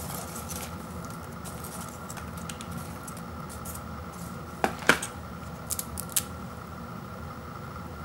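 A hand rummaging through a bowl of popped popcorn, the light puffed pieces rustling and crunching softly against each other and the bowl. A little past the middle come two sharp clicks close together, then a few lighter ones.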